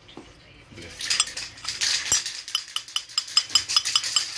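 The wrist pin of a Buran RMZ-640 two-stroke snowmobile piston rattling in its bore as the piston is shaken by hand: rapid metallic clinks, several a second, starting about a second in. The rattle is the sign of a worn, loose pin with play in the piston.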